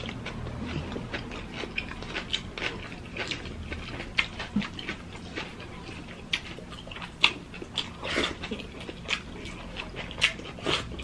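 Close-miked eating sounds: chewing and lip-smacking on mouthfuls of fried rice, egg and hotdog, with many short, irregular wet clicks.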